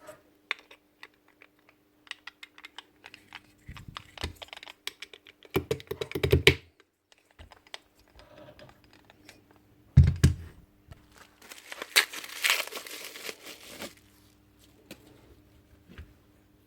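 Hands working on a rotary hammer's parts at a bench: a run of small clicks and taps, heavier knocks about six and ten seconds in, and a couple of seconds of rustling, crinkling noise near the end.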